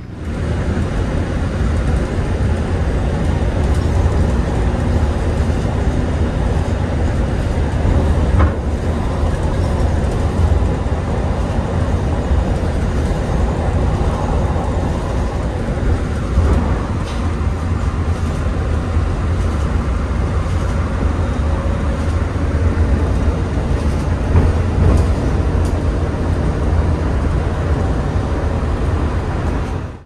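Steady low rumble of a moving vehicle, heard from inside the cabin.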